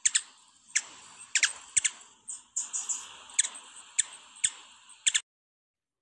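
Hummingbird calls: a string of sharp, high, very short chips at irregular intervals over a steady hiss, stopping about five seconds in.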